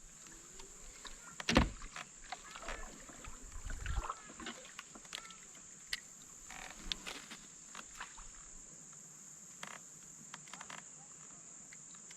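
Steady high-pitched chirring of crickets, with scattered knocks and light clatter of gear in a kayak, the loudest knock about a second and a half in.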